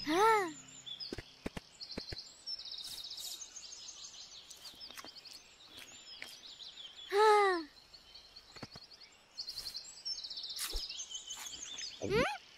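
Jungle ambience of birds chirping and repeated high trills. Over it come two short voiced sounds that rise and then fall in pitch, one near the start and one about seven seconds in.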